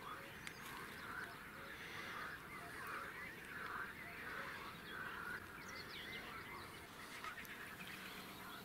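Faint, repeated animal calls, each a short rise and fall in pitch, coming a little over once a second over a quiet background.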